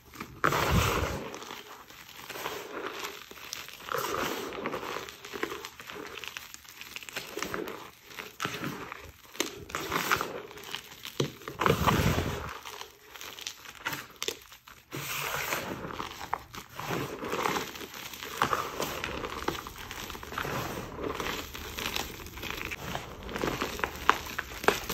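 Hands squeezing, crumbling and sweeping through crushed homemade gym chalk in a pan: soft crunching and powdery rustling in irregular bursts. Two low thumps, one about a second in and one near the middle.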